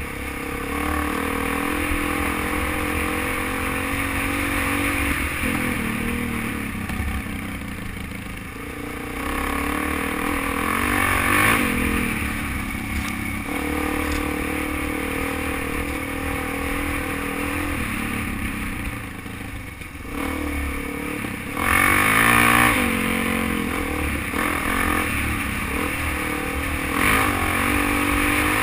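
Dual-sport motorcycle engine running as the bike rides a rough sandy trail, the engine note rising and falling with the throttle and louder about two-thirds of the way through, over steady wind rumble and rattling of the bike.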